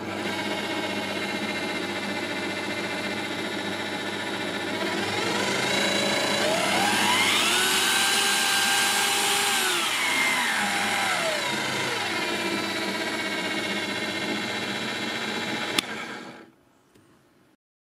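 Parkside PTBMOD 710 B2 bench pillar drill's motor running with no load, a steady whine. About five seconds in the whine climbs as the electronic speed dial is turned up, holds high for a few seconds, then falls back. Near the end a click of the on/off switch and the motor winds down to a stop.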